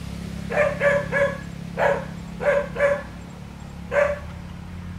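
A dog barking: seven short barks, some in quick runs of two or three, over a steady low hum.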